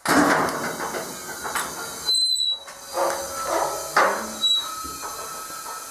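Pneumatic lift table worked by its air foot pedal: compressed air hissing in several spurts, starting suddenly, with a short break about two seconds in, along with squeaks from the table's lift mechanism.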